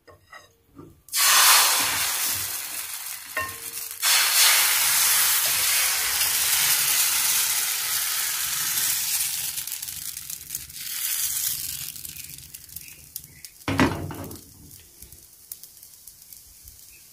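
Crêpe batter poured into a hot non-stick frying pan, sizzling. The hiss starts suddenly about a second in, surges again at about four seconds, and fades slowly as the batter sets, with a brief noise near the end.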